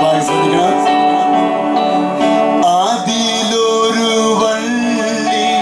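A man singing a Malayalam Christian hymn with instrumental accompaniment, holding long, steady notes.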